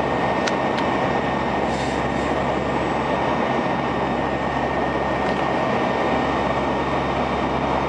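Steady droning noise inside a propeller aircraft's cabin in flight: a constant engine hum with a low steady tone and a rushing noise over it.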